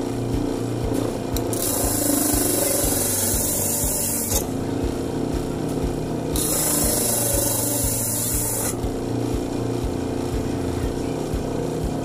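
Homemade disc sander driven by an old washing machine motor running with a steady hum while a wooden block is pressed against the spinning sanding disc, a rasping hiss that comes and goes in stretches of a few seconds.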